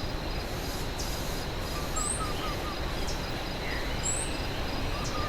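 Amazon piedmont forest ambience: a steady rushing background noise with a high, steady pulsing buzz, over which a bird gives a short high upslurred call about every two seconds. Twice, around two seconds in and near the end, a short run of lower whistled notes.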